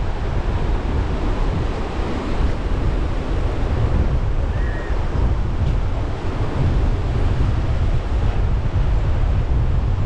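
Ocean surf washing on a beach, with wind buffeting the microphone.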